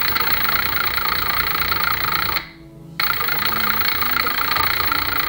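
Brushless electric motor driving the rear wheel through a toothed belt, running steadily. It cuts out for about half a second two and a half seconds in, then runs again.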